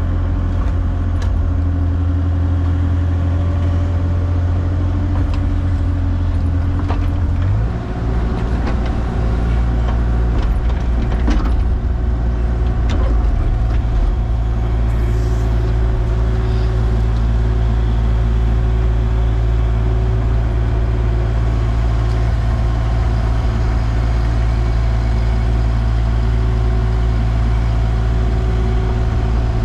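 A vehicle engine running steadily, stepping up to a higher, faster note about eight seconds in, with a few sharp knocks a few seconds later.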